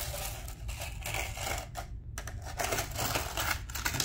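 Small metal machine bolts clicking and rattling against each other in a series of irregular light clicks as a couple are picked out of a handful or package.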